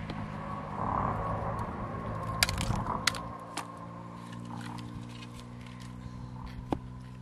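Freshwater mussel shells being handled by hand, with a few sharp clicks and cracks of shell on shell. The two loudest come about a third and halfway through, and another comes near the end, over a faint steady low hum.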